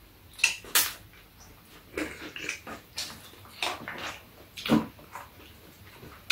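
Eating sounds at the table: irregular slurps of udon and broth and chewing, a short sharp sound every half second to a second.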